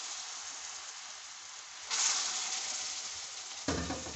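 Water splashed a little at a time onto hot roasted semolina in a pan, sizzling and hissing. A fresh splash about two seconds in makes the sizzle flare up, and it then dies back down. There is a short low knock near the end.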